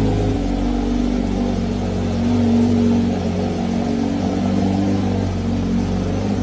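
An engine running steadily, its pitch shifting slightly now and then.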